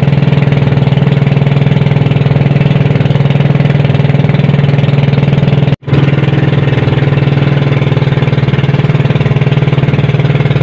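Engine of a motorized outrigger boat running steadily at cruising speed, a loud even drone, broken once by a momentary dropout just before six seconds in.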